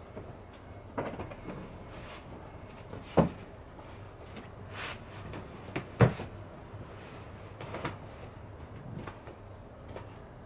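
Bedsheets rustling and a series of soft thumps on a bed, two of them sharper and louder about three and six seconds in, as a cat pounces and moves about on the sheets.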